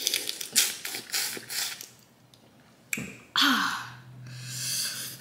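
Close-up eating of boiled crawfish: a quick string of cracks and wet sucking sounds as shells are broken and a crawfish head is sucked, then a longer drawn-out suck about three and a half seconds in.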